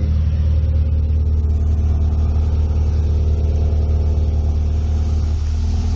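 2004 Honda Civic EX's four-cylinder engine idling steadily through newly installed headers and an aftermarket exhaust.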